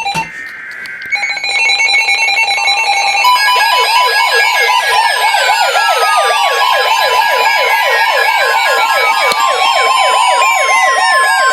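NOAA Weather Radio receivers sounding a warning alert. The last of the SAME data header bursts gives way, about a second in, to the steady warning tone. From about three seconds in, a fast warbling siren-like alarm joins it, repeating about four times a second, along with slower long falling sweeps: several radios alarming at once for a severe thunderstorm warning.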